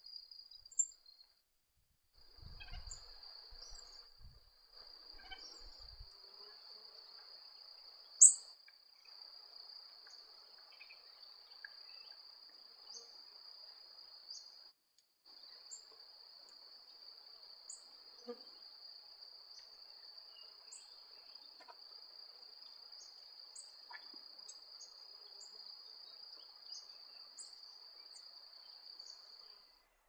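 Steady, high-pitched insect drone held on one pitch, of the kind a cricket or cicada makes, breaking off briefly twice. Short high ticks or chip notes are scattered through it, one sharp and loud about eight seconds in.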